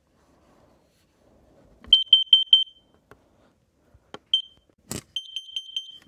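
Kidde carbon monoxide alarm's piezo horn beeping in the CO alarm pattern: four quick high-pitched beeps about two seconds in, then a single short beep, and near the end a fast run of beeps. A couple of sharp clicks fall between them.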